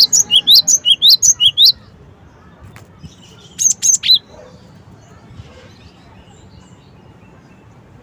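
Gelatik batu (cinereous tit) singing: a quick run of about nine loud, sharp, rising whistled notes in the first two seconds, then a short phrase of three more notes about three and a half seconds in.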